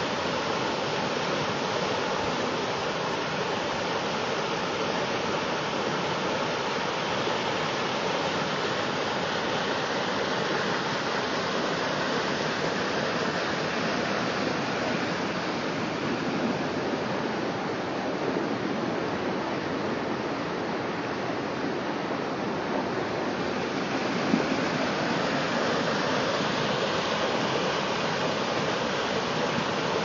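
Steady rush of river water spilling over a low mill dam and churning in the white water below it, a little softer for a few seconds midway.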